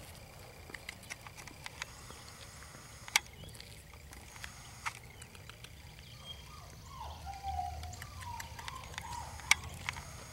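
Scattered light taps and clicks of footsteps on asphalt, from a walking person and a small puppy's paws. A faint wavering tone sounds between about seven and nine seconds in.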